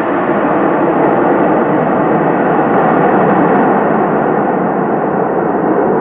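Jet engines of a twin-engine widebody airliner rolling out on the runway just after landing: a loud, steady rushing roar.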